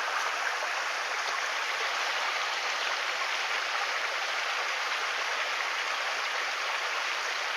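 Steady rush of a mountain stream, water running over rocks.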